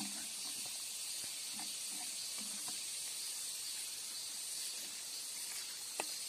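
Steady high-pitched drone of an insect chorus, with a few faint knocks as the milk-can lodong is handled and a sharp click near the end.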